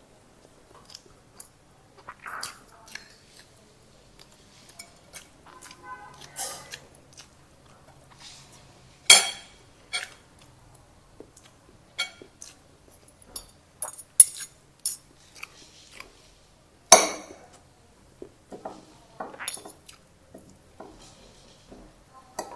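Metal spoon and fork clinking and scraping against ceramic plates while eating fried rice, in scattered light clicks, with three sharper clinks about nine, fourteen and seventeen seconds in.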